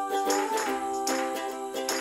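Background music: a light tune with held notes over a steady beat.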